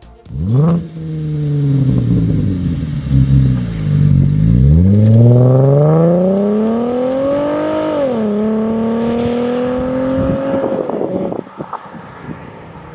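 Holden VF Commodore SV6's 3.6-litre V6 flares up sharply as it fires, settles, then revs with its pitch climbing steadily for about three seconds before dropping suddenly, like a gear change. It holds a steady note, then cuts away about eleven seconds in.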